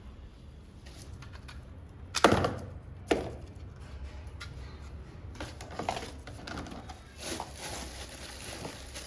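Two sharp knocks about a second apart, then lighter knocks and rustling as a Christmas tree and its decorations are handled and packed away.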